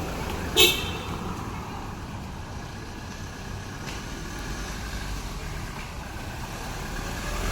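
Outdoor road traffic: a steady hum of passing vehicles, with a low engine rumble that grows louder near the end. A brief sharp, high-pitched sound stands out just over half a second in.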